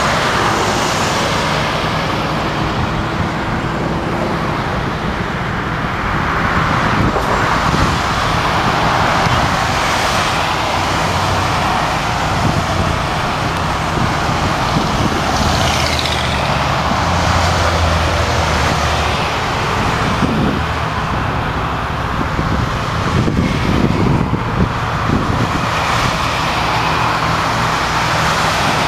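Highway traffic: cars and trucks passing at speed, their tyre and engine noise swelling and fading several times, with a steady low hum underneath.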